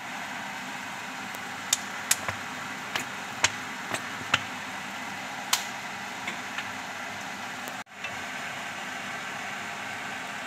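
Vegetables and broth simmering in a nonstick wok with a steady hiss, while a metal spatula taps and scrapes against the pan about ten times. The sound cuts out for an instant about eight seconds in.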